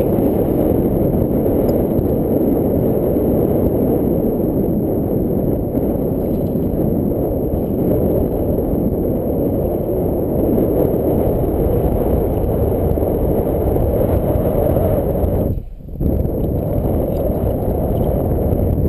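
Wind buffeting a GoPro's microphone: a loud, steady, low rumble with a brief lull about sixteen seconds in.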